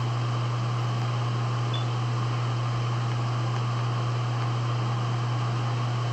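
Steady low hum under an even background hiss, unchanging throughout, with no other sound.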